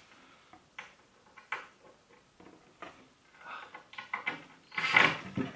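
Scattered light clicks and taps as a cordless drill's bit is set and moved against plywood, with one brief louder noise near the end.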